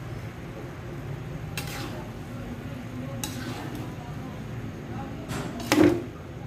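A metal spatula scrapes and knocks against an aluminium wok while turning a pan of sticky fried rice. There are a few separate scrapes, and a louder ringing clank near the end.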